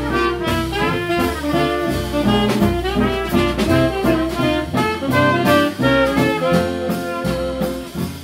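Small swing jazz band playing live: saxophone and trumpet play melody lines together over piano, archtop guitar, double bass and drums keeping a steady beat.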